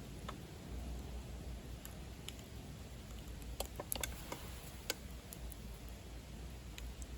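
Wood fire burning in a DCM Fire Boost secondary-combustion stove: a low steady rush with scattered crackles, and a cluster of sharp pops about three and a half to five seconds in.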